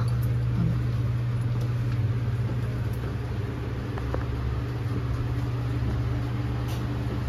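Steady low mechanical hum filling a submarine's steel compartment, with a few faint clicks.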